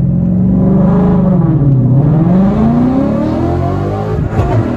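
Car engine pulling hard under acceleration: the revs hold, drop about two seconds in as for a gear change, then climb steadily again. A brief crackle of sharp pops comes near the end.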